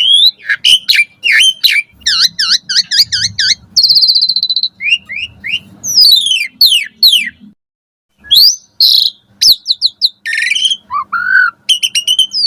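Asian pied starling singing a long, varied song of clear whistles, rising and falling glides and rapid repeated chattering notes, with a brief pause a little after halfway.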